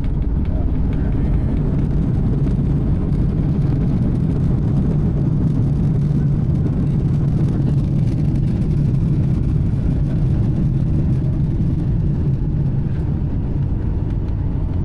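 Steady low vehicle rumble with a constant hum, starting abruptly just before and running unchanged throughout.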